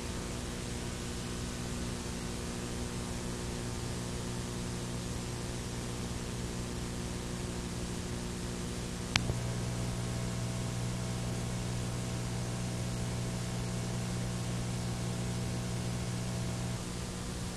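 Steady videotape hiss and electrical hum with no game sound. A single sharp click comes about nine seconds in, after which the hum is a little louder, and the level drops slightly near the end.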